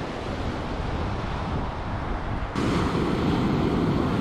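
Ocean surf washing on the beach, with wind buffeting the microphone. The noise jumps abruptly louder a little past halfway through.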